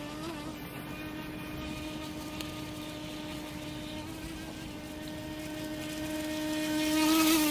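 H106 mini RC speedboat's small electric motor running with a steady, even-pitched whine as the boat speeds across the water, growing louder near the end.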